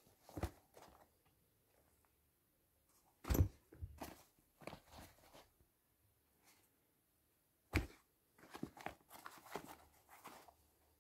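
Sneakers being handled on a pile of shoes: a few short dull thumps, the loudest about three seconds in, with light rustling and knocking of shoes shifting against each other.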